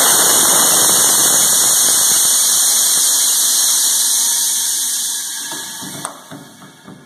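Compressed air hissing out of the pneumatic lift of an Ikarus 280 service truck's lifting side panel as the panel is lowered shut. The hiss is loud and steady, then fades away over the last couple of seconds.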